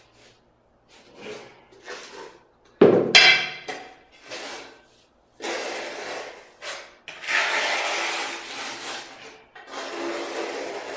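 Mortar being scraped and spread with a trowel across the back of a tile piece in several long strokes. About three seconds in there is one sharp ringing clank.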